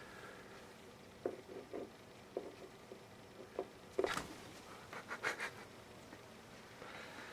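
Scattered light taps, then two short scratchy rustles about four and five seconds in: a pet cat at play.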